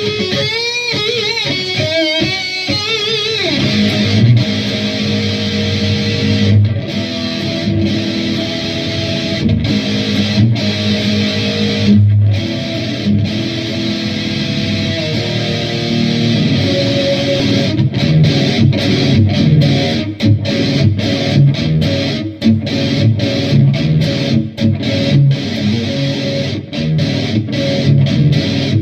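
Dean Cadillac electric guitar through a Boss Metal Zone MT-2 distortion pedal into an Orange Super Crush 100 amp, playing heavily distorted metal. It opens with a few seconds of wavering lead notes with vibrato, moves to held, ringing chords, and then, from about two-thirds in, a choppy riff broken by many short stops.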